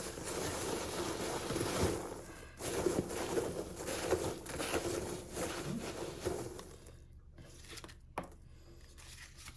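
Hands rummaging through the packing paper in a cardboard subscription box, rustling and crinkling, dying down for the last couple of seconds.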